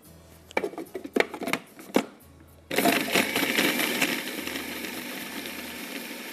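A few knocks and clatters. Then, about two and a half seconds in, an electric blender switches on and runs steadily, pureeing strawberries with coconut milk. It is loudest for its first second or so, then settles.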